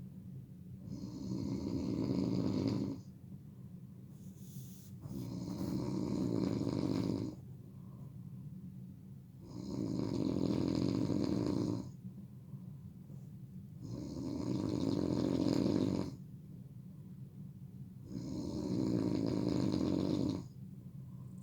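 A person snoring loudly while asleep: five long snores, each about two seconds, coming about every four seconds with quieter breathing in between.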